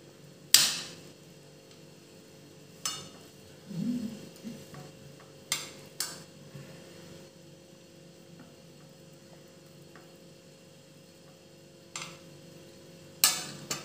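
Metal knife clinking and tapping against a plate while cutting a soft block of steamed egg: several sharp clinks spaced a few seconds apart, with a duller knock about four seconds in.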